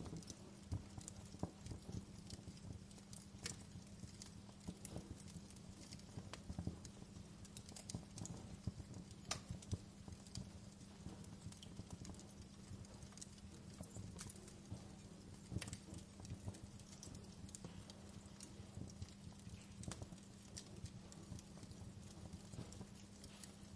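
Wood fire crackling in a fireplace: irregular sharp snaps and pops over a low steady rumble.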